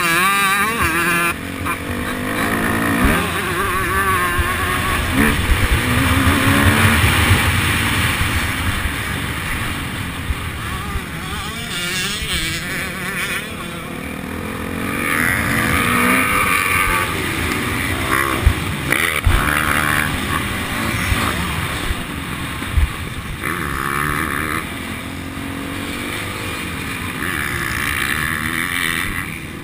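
Onboard sound of a motocross bike's engine revving up and down through the gears as it is ridden around a dirt track, with heavy wind noise on the microphone. A few short thumps come in the second half.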